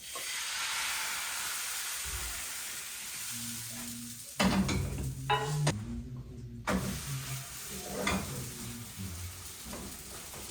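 Thin pancake batter sizzling in a hot frying pan, then a run of sharp knocks and clatter from utensils and the pan from about four seconds in.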